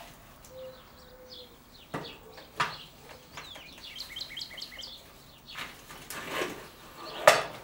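Sharp metal knocks and clunks as the saw head of an Evolution S355MCS chop saw is fitted onto its base and slide rails: about five of them, the loudest near the end. A small bird sings a quick run of high chirps in the middle.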